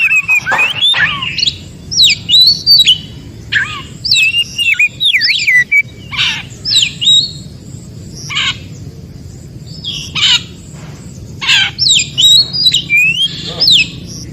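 Oriental magpie-robin singing: varied whistled phrases of rising and falling notes mixed with short harsh rasping calls, with a brief pause about two-thirds of the way through.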